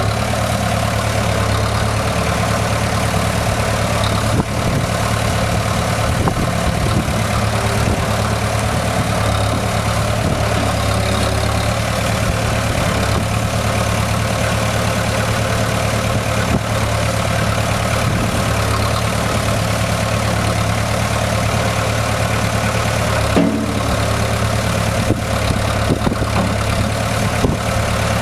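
Hydra-Mac skid steer's engine idling steadily, with a couple of brief clunks, one about four seconds in and one later on.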